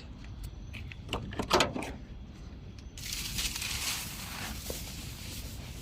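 Handling noise of a sleeping mat being moved and laid on the ground: a few soft knocks, then about three seconds of rustling from about three seconds in.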